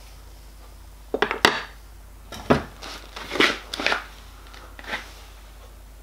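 A copper model locomotive boiler being tipped onto its side and handled on a workbench: a cluster of metal knocks and scrapes against the bench between about one and five seconds in.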